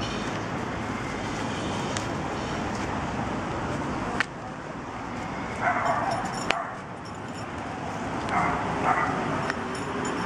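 Toy poodle puppies yipping: short, high-pitched barks come in small clusters about halfway through and again near the end. A steady rushing noise fills the first few seconds.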